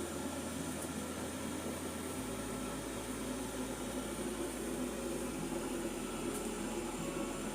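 Steady hum and whir of a household appliance running, with a couple of faint high ticks.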